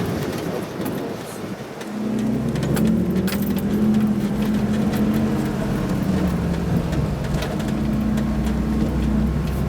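1988 Toyota 4x4's engine pulling steadily in four-wheel-drive low up a rough dirt hill road, with scattered sharp clicks and rattles. The engine eases off briefly about a second in, then picks up again and holds.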